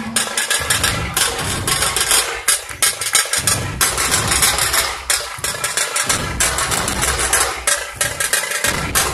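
Dhol-tasha drumming: large Maharashtrian dhol barrel drums beaten in a loud, fast rhythm, with the sharp rattle of tasha drums over them.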